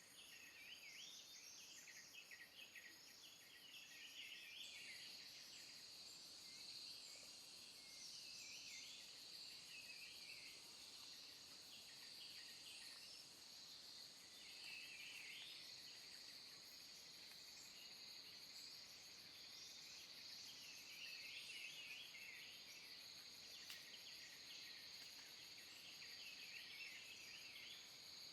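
Faint forest ambience: a steady, high insect drone that sets in about five seconds in, with scattered bird chirps on and off throughout.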